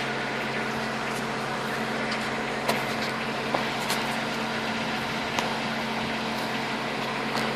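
A motor or engine running steadily with a constant hum, with a few sharp clicks or knocks over it.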